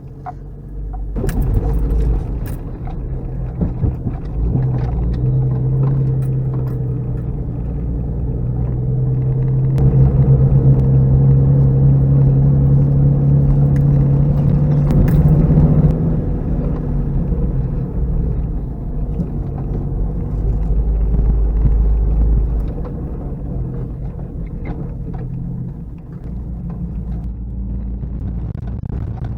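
Jeep Cherokee XJ driving slowly over a rough trail: the engine runs steadily and swells for a while in the middle, with scattered knocks and clicks from the body and suspension over bumps, mostly in the first few seconds.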